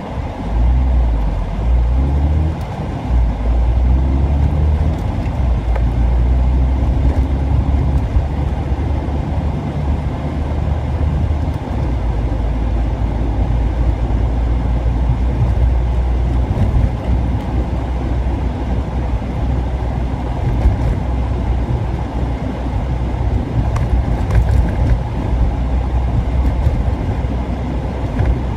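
Car running with its air conditioner switched off: a steady low rumble, with the engine note rising over the first few seconds as it picks up speed.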